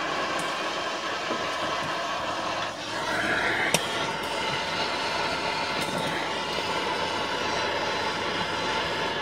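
Handheld gas torch hissing steadily as its flame heats a rusted exhaust stud to free it. The hiss shifts slightly about three seconds in, with a single sharp click a little under four seconds in.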